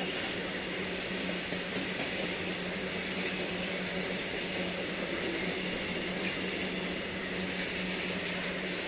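Covered goods wagons of a long freight train passing at speed: a steady rush of wheel and rail noise with a low steady hum beneath it.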